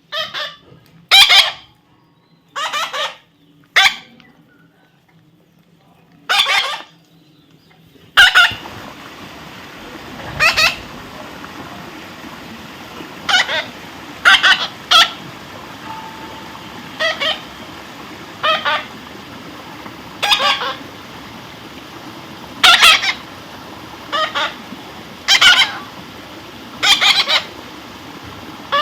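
Baby parrot squawking: a series of short, loud calls, one every second or two. A steady background hiss comes in about eight seconds in.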